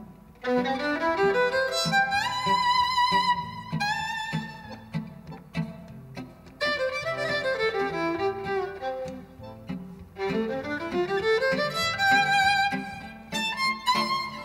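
Violin playing fast scale runs that sweep up, then down, then up again, with vibrato on its held high notes, over a lower accompaniment.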